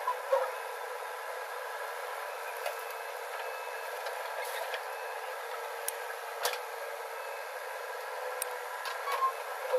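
JCB backhoe loader's diesel engine running steadily as it digs earth and loads it into a tractor trolley. A few sharp clicks come in the second half.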